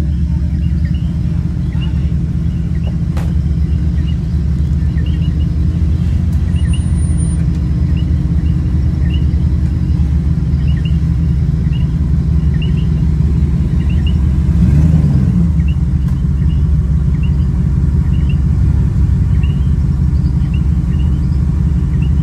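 A 4x4 vehicle's engine running steadily with a low rumble, and a brief waver in pitch about fifteen seconds in.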